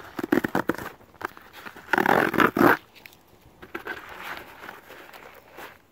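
A cardboard shipping box being torn open by hand: crackling and scraping of tape and cardboard, then a loud rip about two seconds in lasting under a second, followed by softer scratching.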